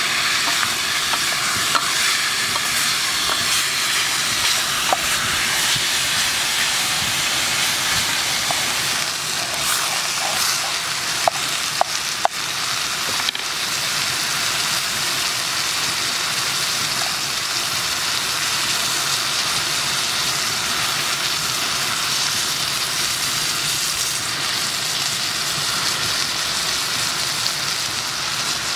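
Chunks of buffalo meat sizzling steadily as they brown in a pot over a wood fire, with a few sharp clicks near the middle.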